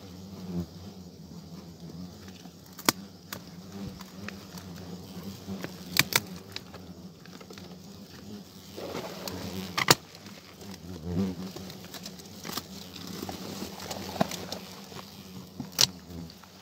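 Hornets buzzing around their nest, a steady low hum that swells briefly now and then as one flies close, with several sharp clicks from the branches being handled.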